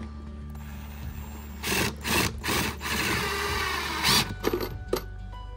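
Ryobi cordless impact driver hammering a screw into stacked wood blocks: a few short bursts about a second and a half in, then a longer run that stops about four seconds in.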